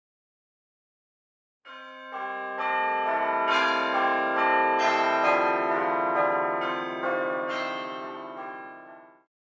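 A run of bell tones struck one after another about twice a second and left to ring together. It starts after about a second and a half of silence and fades out near the end.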